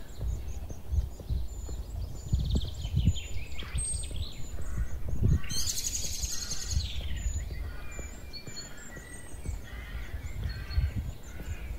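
Songbirds chirping and singing, with a short high chirp repeating over and over and a louder rapid trill about halfway through, over the low thud of a walker's footsteps on the road.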